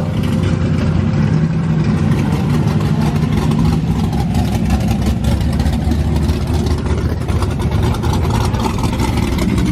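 Camaro's engine idling with a hard, choppy lope from a big camshaft, pulsing unevenly without a break.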